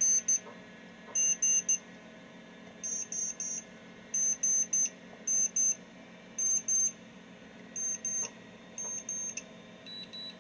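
RSR-610B logic probe's beeper giving short high-pitched beeps in clusters of two or three, about once a second, as its tip is touched to pin after pin of the C64's ROM. The pulsing tone signals data activity on each address and data line. Near the end a steady, lower tone starts.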